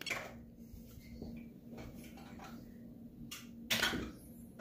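Plastic clicks and handling of a SimpliSafe keypad as the edges of its screen are pressed to scroll through a list of names, with the sharpest clicks a little over three seconds in.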